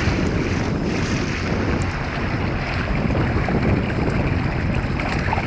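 Wind buffeting the microphone: a steady, rough rumble with a hiss above it.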